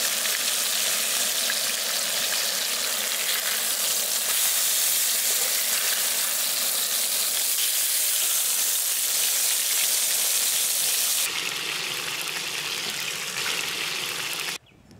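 Boneless chicken pieces sizzling as they fry in oil in a nonstick pan, a steady high sizzle. About eleven seconds in it turns to a coarser hiss reaching lower, and it cuts off abruptly near the end.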